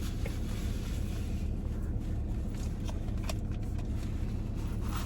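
Steady low rumble of a car engine running, heard inside the car, with a few faint clicks around the middle.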